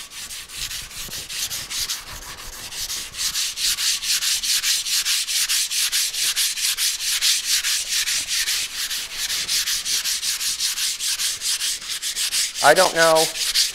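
Hand sanding of guide-coated primer on a car fender with sandpaper: quick back-and-forth strokes, about five a second, making a dry scratchy hiss that grows louder about three seconds in.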